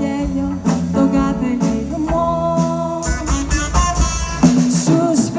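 A live swing band playing a Greek swing song, with guitar and a steady beat on drum kit.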